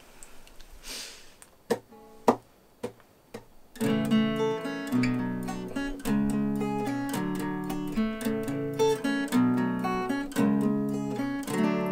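Acoustic guitar: a few light clicks and single plucked notes, then about four seconds in, steady chord playing starts as the instrumental intro to a song.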